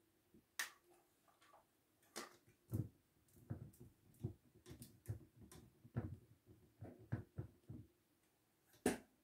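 Parts of a light stand being handled and fitted together: a run of irregular clicks and light knocks, the sharpest click near the end, over a faint steady hum.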